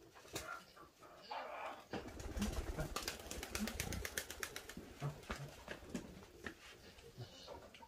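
Soft, low bird calls, cooing a few times at intervals. A dense run of quick clicks and crunches comes in the middle.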